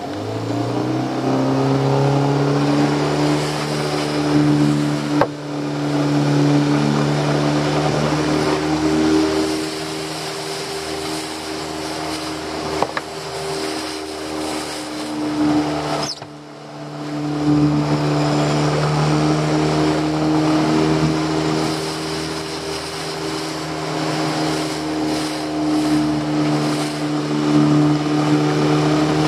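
Outboard motor driving an open fishing boat under way, rising in pitch as it is throttled up in the first second, then running steadily. It eases off briefly a little past halfway and comes back up, with the rush of the wake and wind underneath.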